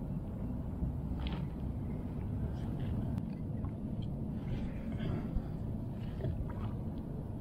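Steady low rumble of wind and water around a kayak, with a few faint light clicks and squeaks from a spinning rod and reel being handled.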